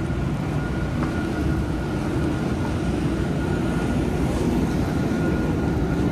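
PCC streetcar rolling slowly past at close range: a steady low rumble with a thin, steady high whine over it, growing slightly louder toward the end.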